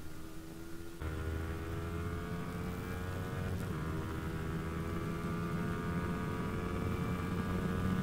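Yamaha R15 V3's 155 cc single-cylinder engine at full throttle in a drag run. It gets louder about a second in, then its pitch climbs steadily as the revs build in one gear, over wind rush.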